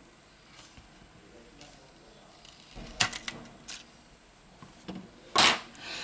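Light clicks and taps of a smartphone display module and a metal pick being handled, with a cluster of clicks about three seconds in, then a short, louder scrape or rustle near the end.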